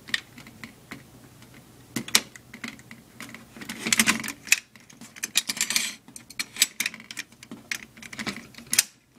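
Metal clicks and clacks from the front bracket of a Dell PowerEdge 2950 server rail being released, turned round and clipped back by hand, with a couple of short scrapes midway.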